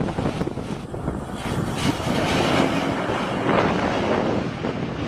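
Airplane noise during a landing approach: engine and rushing air make a steady, noisy rumble that swells a little about two seconds in.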